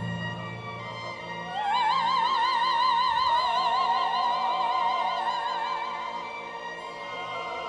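Operatic soprano voice sliding up into a long, high sustained note with wide vibrato, over an orchestra.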